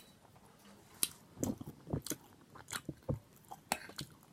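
Close-miked chewing of a mouthful of food, with irregular wet clicks and smacks of the mouth.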